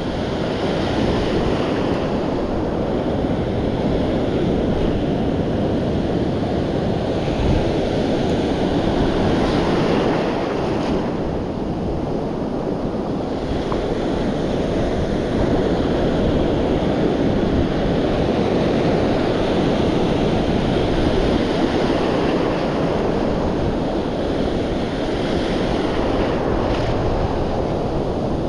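Ocean surf breaking and washing in over a sandy beach: a continuous rush of water that swells and eases a little.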